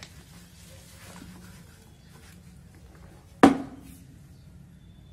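Hands filling and pressing potting soil into a pot around a plant's root ball: faint scraping and rustling, with one sharp thump about three and a half seconds in.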